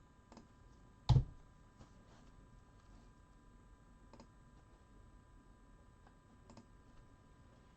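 One sharp knock about a second in, then a few faint scattered clicks over quiet room tone.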